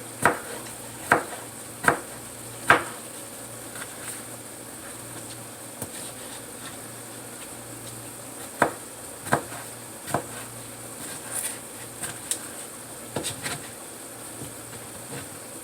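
Kitchen knife cutting tomatoes on a cutting board: sharp knocks in uneven runs, four in the first few seconds, then three more after a pause and some fainter taps, over a steady low hum.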